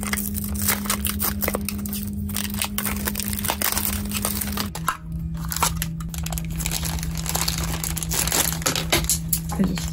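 Plastic and foil wrapping of a mystery toy box crinkling as hands unwrap it: continuous rustling made of many sharp, irregular crackles.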